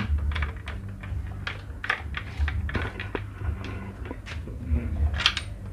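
Irregular light clicks and clinks of hand tools and metal engine parts being handled during engine reassembly, with a sharper tap about five seconds in.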